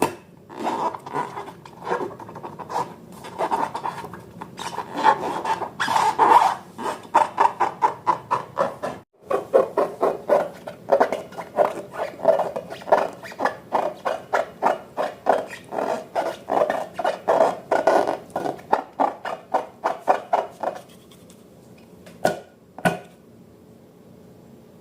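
Slime being mixed by hand, a quick run of wet rubbing and scraping strokes about three to four a second. The strokes stop a few seconds before the end, followed by two short clicks.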